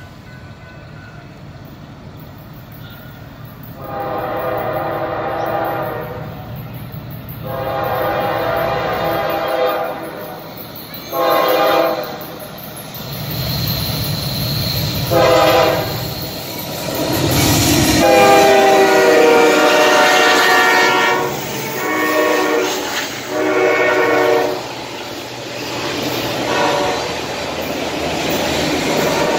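Norfolk Southern diesel freight locomotive's multi-note air horn sounding a string of long and short blasts as the train approaches, with a deep engine rumble as the locomotives pass. Near the end the steady clickety-clack of autorack cars rolling by over the rail joints.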